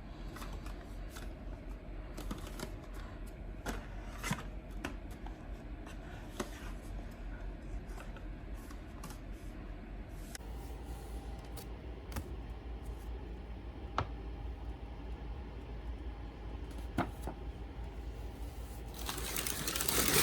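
Product packaging being handled: scattered light taps and clicks of small boxes and bottles, over a steady low hum. Near the end comes a louder burst of rustling.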